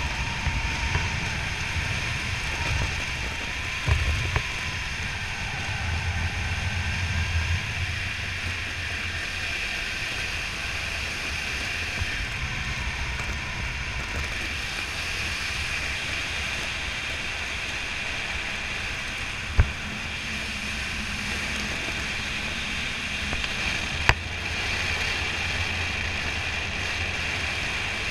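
Steady wind noise on a helmet camera's microphone from airflow during a parachute descent under an open canopy, with a low rumble. Two sharp clicks in the second half.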